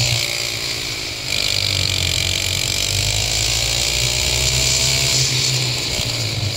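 Go-kart engine running hard on track, heard from an onboard camera with wind noise over the microphone; the revs drop briefly about a second in, then climb steadily again.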